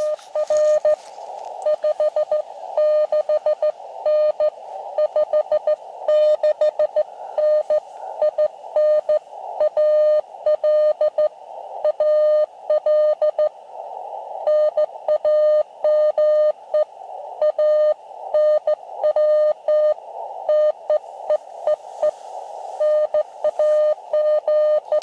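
Morse code (CW) from an Elecraft KX2 transceiver's speaker on the 40-metre band: a single mid-pitched tone keyed on and off in dits and dahs over steady receiver hiss, with short pauses between groups. The distant station is sending by hand on a straight key.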